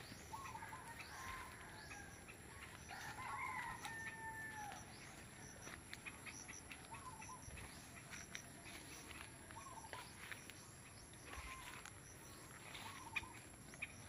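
A rooster crowing faintly once, a drawn-out call that rises, holds and falls about three seconds in, with short calls repeated every second or two.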